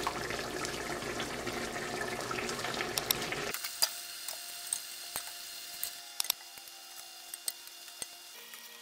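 Chicken broth simmering in a pot while a slotted spoon lifts pieces of chicken out, scraping and clinking against the pot's metal sides. The steady bubbling noise cuts off suddenly about three and a half seconds in, leaving only scattered clinks of the spoon.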